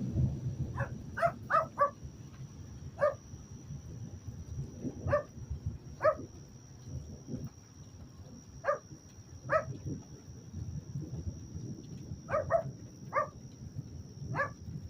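A dog barking repeatedly, about a dozen short barks, some single and some in quick runs of two to four, over a continuous low rumble.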